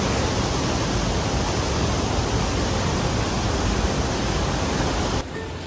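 Waterfall pouring: a steady, loud rush of falling water. It cuts off suddenly about five seconds in.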